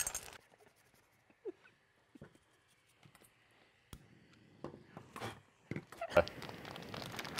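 Mostly quiet, with a few scattered light clicks and knocks, a cluster of them a little past halfway, then a faint steady hiss from about six seconds in.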